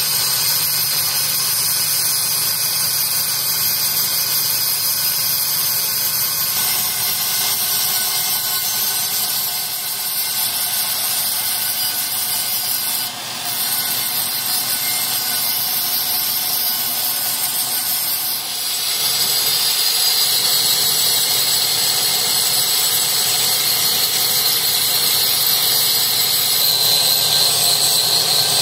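Hand-held angle grinder running continuously with its disc against the steel eye of a hydraulic jack's cylinder, a steady high whine. The sound dips briefly twice near the middle and is a little louder for the last third.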